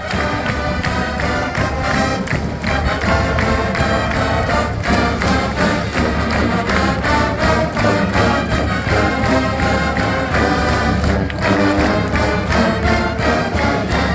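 Marching band playing, brass over drums with a steady beat.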